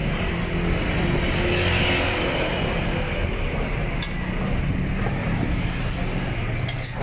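Street traffic with a motor vehicle engine running steadily, plus a few sharp clicks near the end.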